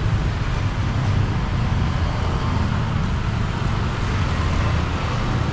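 Street traffic noise: a steady low rumble of motor vehicles.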